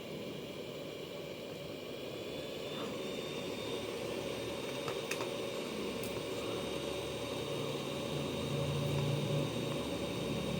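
Hot air rework gun's blower running, a steady rush of air. A faint thin whine joins about a quarter of the way in, and there are a couple of light clicks near the middle.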